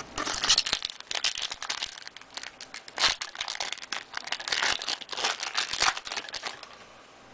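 A basketball trading card pack's wrapper being crinkled and torn open: a dense run of crackling and rustling that stops about six and a half seconds in.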